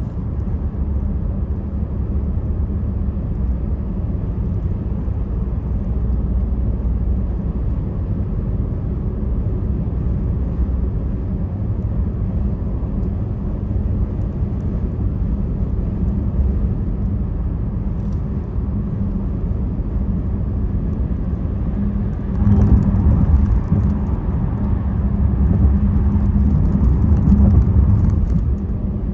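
Car cabin road noise at freeway speed: a steady low rumble of tyres and engine, which grows louder for several seconds near the end.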